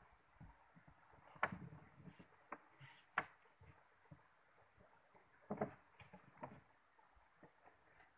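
Mostly quiet, with a few scattered knocks and clicks, the sharpest about a second and a half and about three seconds in, and a small cluster of them past the middle.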